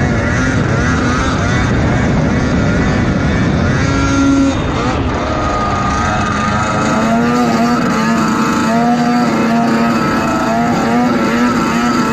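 Snowmobile engine held at high revs while the sled skims across open water, its pitch wavering up and down.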